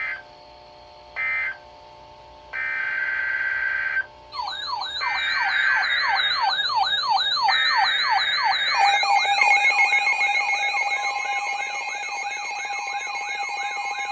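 Emergency alert tones for a severe thunderstorm warning. First come three short buzzy data bursts, like an EAS header, then a fast warbling electronic alarm that sweeps up and down in pitch several times a second, joined about nine seconds in by a steady two-tone attention signal.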